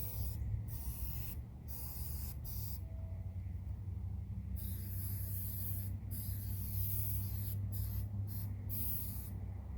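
Aerosol can of rubber sealant spraying in a series of hissing bursts, several seconds long and separated by short pauses, to seal around a stove chimney against leaks. A steady low rumble runs underneath.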